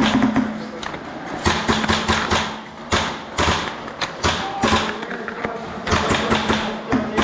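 Airsoft guns firing several rapid bursts of quick, evenly spaced shots, with a steady hum under each burst.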